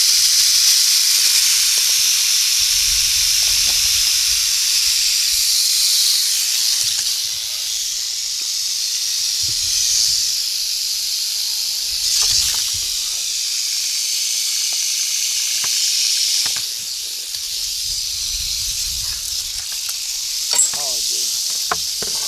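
Several rattlesnakes rattling at once, a continuous dry high buzz, the defensive warning rattle. It eases a little about two-thirds of the way through, with some handling rumbles and a couple of clicks near the end.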